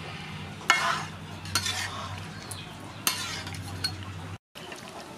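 A metal ladle and a wire strainer scrape and clink against an aluminium wok while squid is stirred and scooped out of boiling water. There are about four sharp scrapes over a steady bubbling background.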